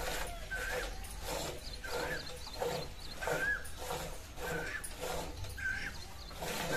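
Hand milking: streams of milk squirting from a Gir cow's teats into a partly filled steel bucket in a steady rhythm of short hissing spurts, about two a second, as the two hands alternate. Short high chirps recur over it.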